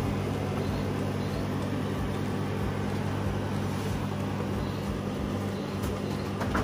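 Steady low mechanical hum made of several held tones. Near the end come a few light clinks of a steel spoon against a steel bowl of batter being stirred.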